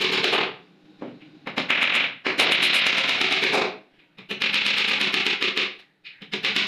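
A hammer driving nails into the corner joint of particle-board cabinet panels: runs of rapid, evenly spaced blows with short pauses between them.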